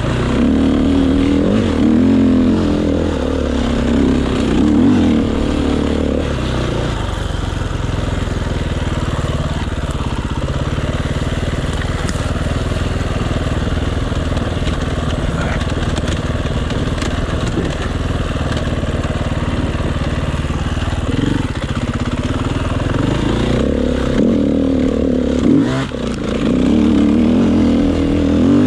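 Enduro motorcycle engine running under way, pulling at higher revs for the first several seconds and again near the end, and running lower and steadier in between, with a brief drop in sound about three seconds before the end.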